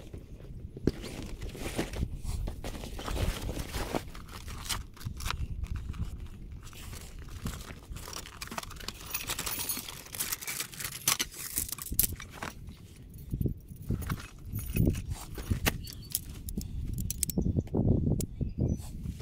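Handling of a canvas swag and its metal tent poles: irregular fabric rustling and crinkling mixed with poles clinking and knocking together as they are pulled out and assembled.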